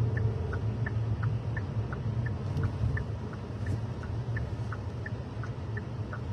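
A car's turn-signal indicator ticking steadily in the cabin, about three ticks a second and alternating between two pitches, over the low rumble of the car driving.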